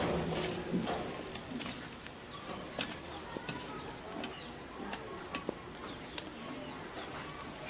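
Small birds chirping again and again, with a pigeon cooing in the first second. A few sharp clicks come from a steel slotted spoon on the iron wok as fried egg pakoras are lifted out of the oil.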